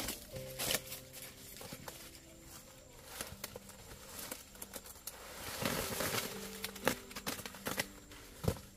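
Dry corn leaves and husks rustling and crackling as they are handled, with scattered snaps and clicks and a louder stretch of rustling about six seconds in.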